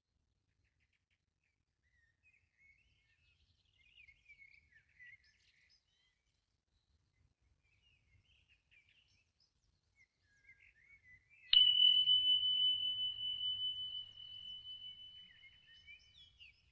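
Faint birds chirping, then about eleven seconds in a small meditation bell is struck once: a single high ringing tone with a wavering pulse that fades over about five seconds. It marks the end of the Shavasana rest.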